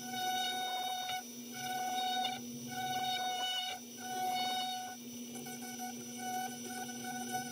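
Dremel rotary tool running on its flex shaft, a fine carving bit grinding between the teeth of an oak skull: a steady motor whine, with a higher grinding whine that comes and goes about once a second as the bit is pressed into the wood and lifted off.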